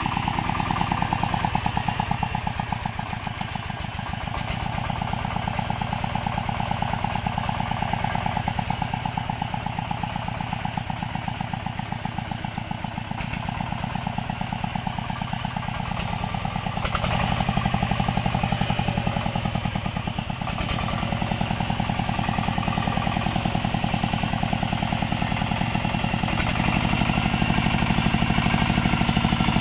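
Chinese D30 single-cylinder diesel engine of a water-channel digging machine running under load as the machine drives across soft mud. It makes a fast, even chugging that grows louder about halfway through and again near the end.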